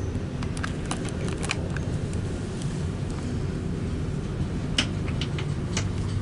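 Steady low rumble and hum inside the car of a traction lift modernised by Otis as it travels, with a few light clicks and taps scattered through.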